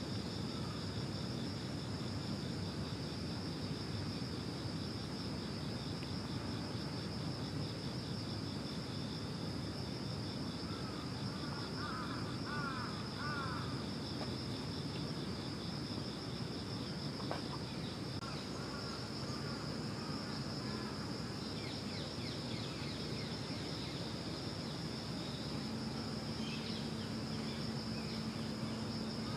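Insects trilling steadily in a high, even drone, over a low background rumble of outdoor noise. A few short chirping calls come now and then, and a low steady hum starts near the end.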